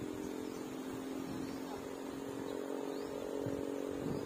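An engine running steadily at a constant pitch, with a few faint short, high, rising chirps a couple of seconds apart.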